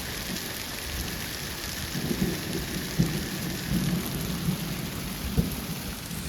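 Large hailstones falling thickly, a dense steady hiss of pellets striking the ground, with a couple of sharper hits about three and five seconds in and low rumbling underneath.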